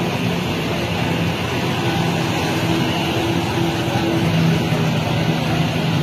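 Steady rushing noise of fast-flowing floodwater in a street, with a low engine hum that comes and goes and is strongest in the second half.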